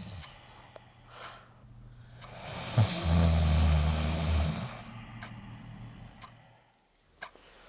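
A sleeping person snoring: one long, loud snore with a low rasping drone and hiss, lasting about two seconds, about halfway through. Then a clock ticking about once a second.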